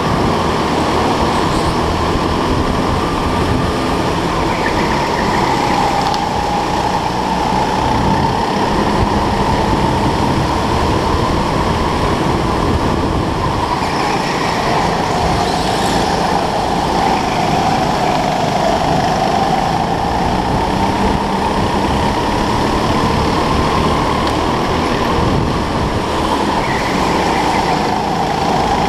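Go-kart running flat out on an indoor track, heard from on board: a steady motor drone with a high whine that rises and falls in pitch as the kart speeds up and slows for the corners.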